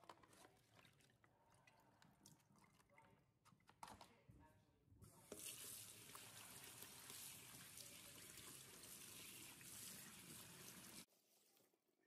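Crinkling plastic and small clicks as a packet of konjac noodles is squeezed out over a sink. About five seconds in, a kitchen tap starts running steadily into a stainless steel sink, over a mesh strainer of noodles being rinsed by hand. The water cuts off suddenly about a second before the end.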